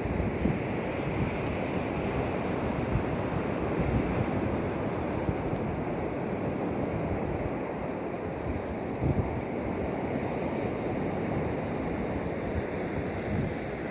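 Sea surf washing steadily, with wind blowing across the microphone and a few brief low buffets about nine seconds in.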